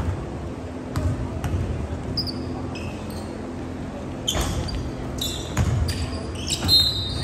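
Basketball bouncing on a hardwood gym floor around a free throw, a sharp thud every second or so, with short high sneaker squeaks on the court as players move for the rebound. A steady low hum runs underneath.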